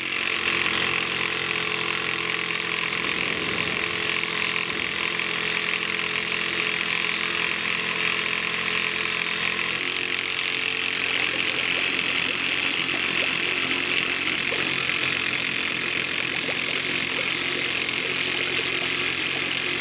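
Homemade syringe air compressor running: a small electric motor turning a crank that drives the syringe piston, giving a steady, continuous mechanical whir. The lower hum thins a little about halfway through.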